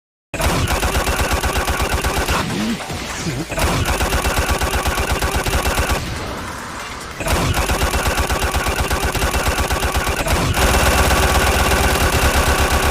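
Rapid automatic gunfire sound effect, a fast even stream of shots, breaking off twice for about a second.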